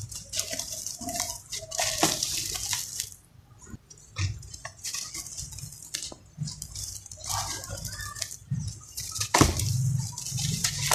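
Dry, gritty lumps of a sand-and-dirt mix crushed by hand in a plastic tub: a series of crunchy crumbles and hissing pours of powder, with pauses between them and a sharp knock about nine seconds in.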